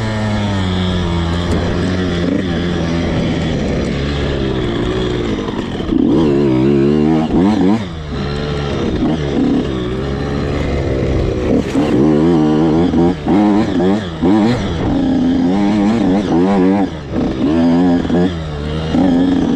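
85cc two-stroke dirt bike engine being ridden hard. It runs fairly evenly at first; from about six seconds in, the revs rise and fall rapidly again and again, with short drops as the throttle is chopped and gears are changed.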